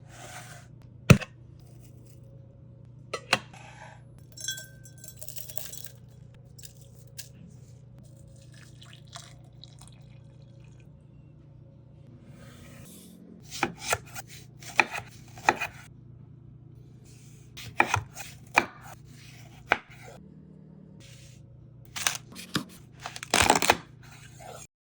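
Kitchen preparation sounds for a passion fruit lemon tea: a series of separate sharp knocks and clinks of a knife, utensils and glassware, the loudest about a second in and denser near the end, over a steady low hum.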